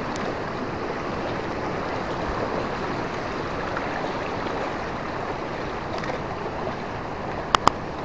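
A river rushing steadily over rocks. Two sharp clicks come close together near the end.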